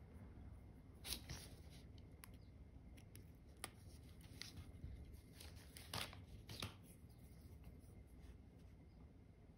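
Faint clicks and scrapes of fine tweezers handling small surface-mount parts and a strip of component tape: a few light ticks spread over several seconds, against near silence.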